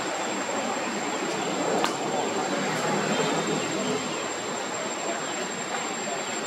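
Steady rushing outdoor background noise with a thin high steady tone over it, and a single faint click just under two seconds in.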